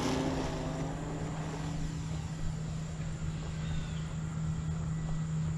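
Parkzone T-28 radio-controlled model plane's electric motor and propeller running at high throttle on takeoff. It is a steady drone, with a higher whine that drops in pitch and fades over the first couple of seconds as the plane pulls away.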